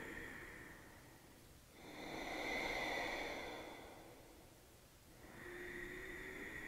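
Ujjayi breathing: slow, deep breaths drawn audibly through a narrowed throat, each swelling and fading over a few seconds as a soft hiss. The loudest breath comes about two to four seconds in, and another begins near the end.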